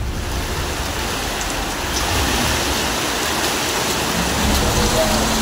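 Floodwater rushing through a street, a steady, dense rush of moving water.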